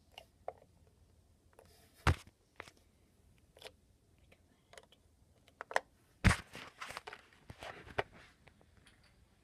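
Handling noise of small toys on a table: a few sharp knocks and clicks as a plastic figure, slime and plastic markers are picked up and set down. The loudest knock comes about two seconds in, and a cluster of knocks follows about six seconds in.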